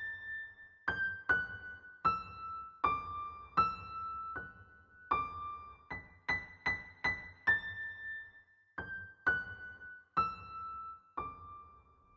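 Background Christmas music: a keyboard melody played one note at a time, each note ringing and fading, mostly stepping downward in short phrases, with a run of four quick repeated higher notes in the middle.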